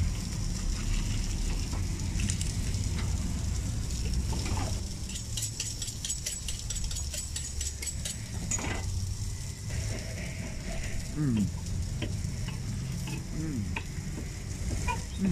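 Street-stand burger griddle sizzling with a steady frying hiss, with a run of quick ticks about five to eight seconds in.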